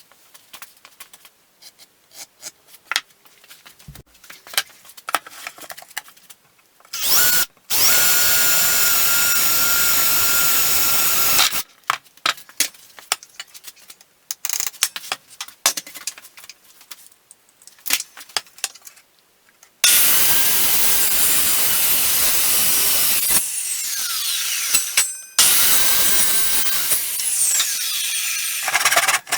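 A power tool working wood in two loud runs, the second one longer, with its motor whine falling in pitch as it winds down. Light clicks and knocks of handling come in between.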